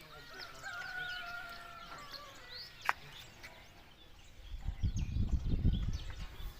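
Birds chirping and calling outdoors, with one longer held call early on and a sharp click about three seconds in. In the last two seconds a low, uneven rumble takes over.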